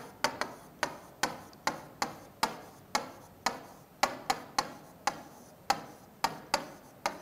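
Marker pen tapping and clicking against a whiteboard while writing. The clicks are sharp and come at an irregular pace, about two or three a second.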